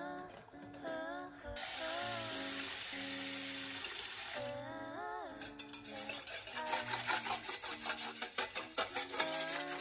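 Tap water running into a rice cooker's inner pot of rice for about three seconds. Then fingers swish and rub the rice grains in the water to wash them, in quick uneven strokes. Soft background music plays throughout.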